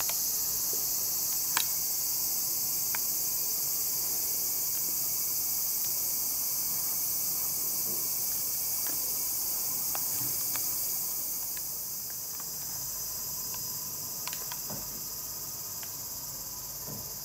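A steady, high-pitched chorus of crickets and other insects, with a few faint clicks. The chorus eases slightly past the middle.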